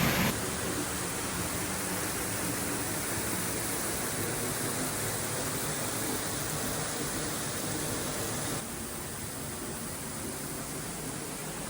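Waterfall, a steady rush of falling water. The level drops suddenly twice, just after the start and about three-quarters of the way through.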